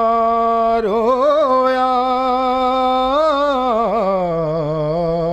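A man's solo voice chanting an Urdu noha without accompaniment, holding a long note, then winding through quick ornamented turns and settling on a lower held note about four seconds in.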